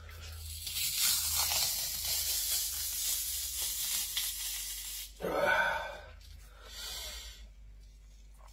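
Dogfish skin tearing away from the flesh as it is peeled back by hand: a long ripping hiss for about five seconds, a short louder sound about five seconds in, then a second, briefer tear.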